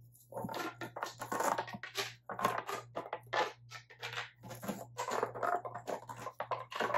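Hard plastic fidget toys being worked by hand, giving a quick, irregular crackling clatter.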